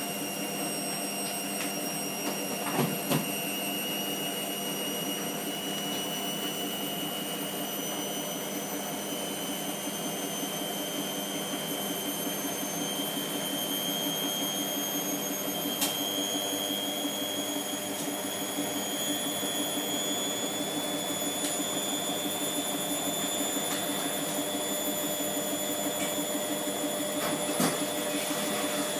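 Hotpoint Aquarius WMF720P washing machine spinning, its motor whining steadily and slowly rising in pitch as the drum speeds up, with a heavily sudsed load inside.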